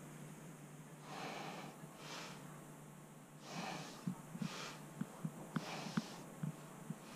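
A person breathing close to the microphone: several noisy breaths about a second apart. In the second half there are light knocks from the camera being handled, over a low steady hum.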